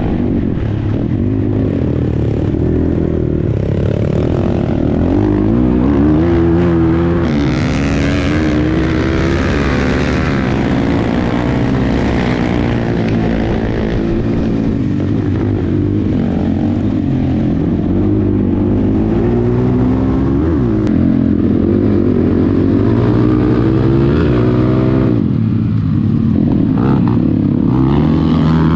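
250 cc dirt bike engine under way at speed. Its pitch rises and falls over and over as the throttle is opened and closed.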